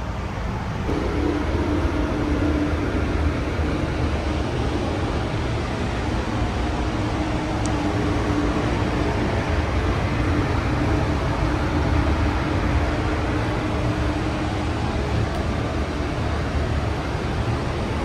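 Steady rush of air with a low rumble, the sound of a spray booth's ventilation and a compressed-air spray gun. About a second in, a hum joins and the sound gets louder, then it runs on evenly.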